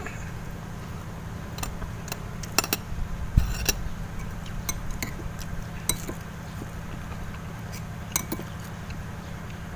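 Spoons and forks clinking and scraping against plates and a metal cooking pot as people eat: irregular sharp clicks, busiest about three seconds in, over a steady low hum.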